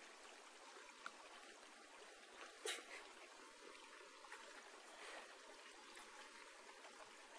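Near silence: a faint steady hiss, with a faint click about a second in and a short, louder tap about two and a half seconds in.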